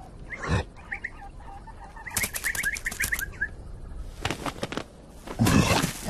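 Cartoon birds twittering in a run of short, quick rising chirps, followed near the end by louder rustling bursts.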